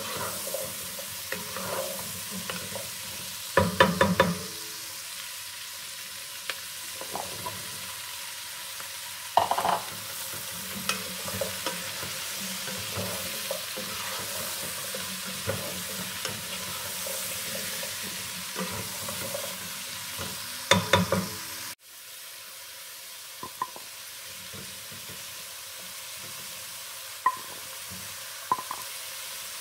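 Chopped onions, mushrooms, carrots and celery sizzling in oil in a pot while a wooden spoon stirs them, with three short clatters of the spoon against the pot. After a brief dip about two-thirds through, the sizzle goes on a little quieter with a few single clicks near the end.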